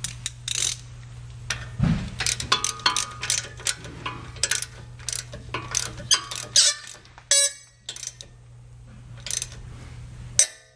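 Hand ratchet clicking in short, irregular strokes as a bolt is turned, with a quick run of clicks about seven and a half seconds in.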